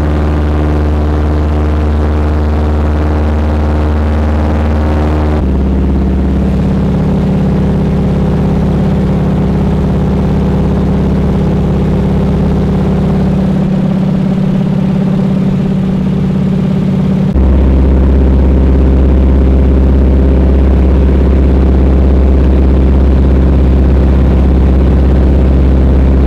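Float plane's engine and propeller droning steadily, heard from inside the cabin. The note changes abruptly about 5 seconds in and again about 17 seconds in, getting a little louder the second time.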